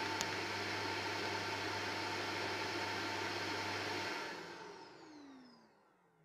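Shark DuoClean Lift-Away upright vacuum running on carpet with a steady whir, then switched off about four seconds in, its motor winding down in a falling whine that fades away.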